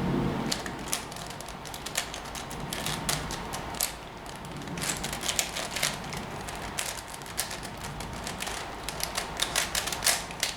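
Plastic 5x5 Rubik's cube being turned by hand: an irregular run of clicks as its layers snap round, coming faster and thicker near the end.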